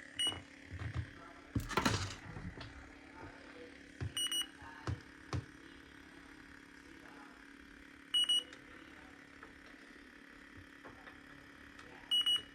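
Fieldpiece electronic refrigerant leak detector beeping: a short high double beep about every four seconds over a faint steady hum. There are a few handling knocks in the first few seconds.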